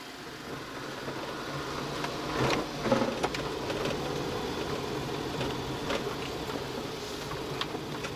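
Kei camping car's engine and road noise heard from inside the cab while driving slowly, a steady hum with a few light knocks and rattles.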